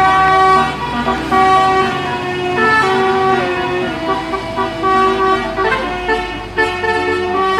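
Indonesian bus 'telolet' horn: a set of air horns sounding a quick tune of held tones that change pitch every half second or so.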